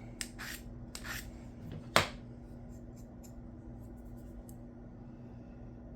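A few short scraping strokes of a chipped knife blade across a sharpening stone, then one sharp click about two seconds in. A few faint ticks follow over a steady low hum.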